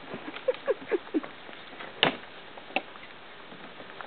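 Golden retriever puppies at play giving a quick run of four short, falling whines or yips, followed by two sharp knocks.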